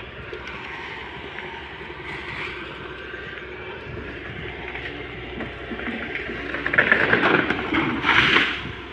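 Tata Hitachi 210 excavator's diesel engine running steadily under load as its bucket pushes against a tree. From about two thirds of the way in, a loud crashing of snapping branches and rustling leaves lasts around two seconds as the tree is pushed over.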